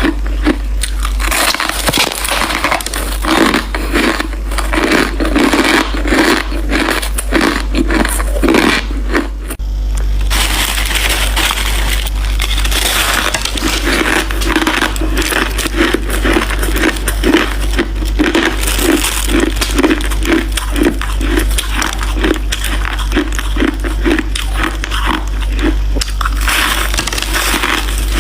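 Close-miked crunching and chewing of crushed white ice, a fast run of crisp crunches and crackles one after another. There is a brief dip about ten seconds in, then the crunching goes on.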